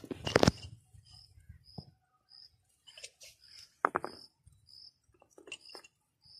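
An insect chirping steadily outdoors, about two short high chirps a second. A few sharp knocks and clicks from handling fishing gear on the rocks sound over it; the loudest comes about half a second in, and another sharp one comes near the middle.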